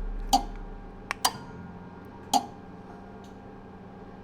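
Relays in the Nissan 350Z's power module clicking as the car's self-diagnosis test switches its circuits: four sharp clicks, two of them close together about a second in, while a low hum fades out over the first second.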